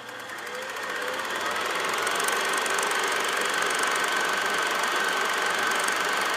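A dense, steady mechanical rattling noise that swells up over the first two seconds and then holds, with a faint steady high tone running through it.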